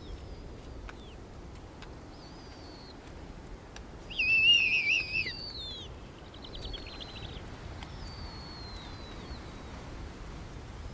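Snowy owl owlets begging at the nest with thin, high whistled peeps that slide downward. A louder, wavering call comes about four seconds in, and a quick rattling trill follows near seven seconds.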